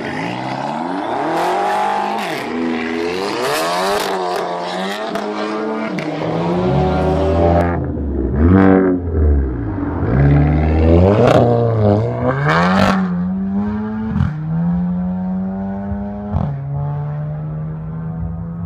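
VW Golf GTI engine revved hard several times, its pitch rising and falling, with sharp exhaust pops and crackles on several of the revs. It settles to a steady idle near the end.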